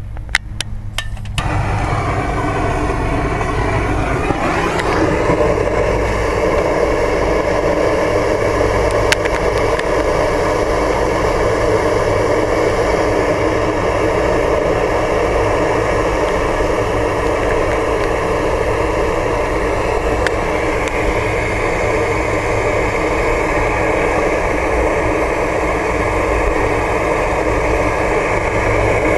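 A motor-driven machine starts up about a second in, speeds up over the next few seconds, then runs steadily with a constant low hum.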